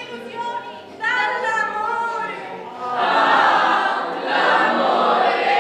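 Chorus of young voices in unison: a sung or chanted phrase with a few short pauses, then, about three seconds in, a louder long massed vocal sound from the whole group.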